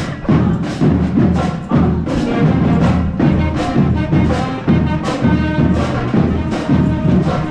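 High school marching band playing: brass holds low notes over a steady drum beat.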